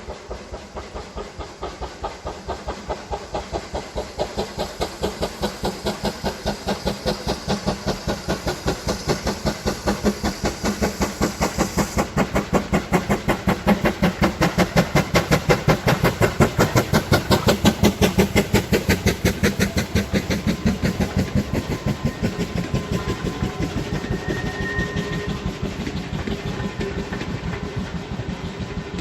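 GWR 4575-class 2-6-2 prairie tank steam locomotive 5541 working a train, its exhaust beats coming quick and even. The chuffing grows louder to a peak about two-thirds of the way through as it passes, then eases slightly.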